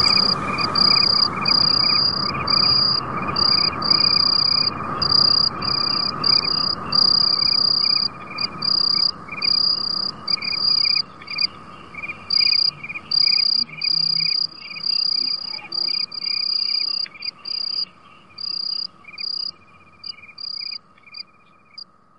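Crickets chirping in pulses of uneven length over a steady high hum. The chirps grow sparser and fade out near the end.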